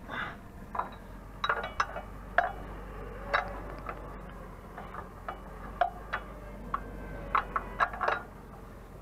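About a dozen irregular sharp clicks and knocks close to the microphone, over a low steady hum.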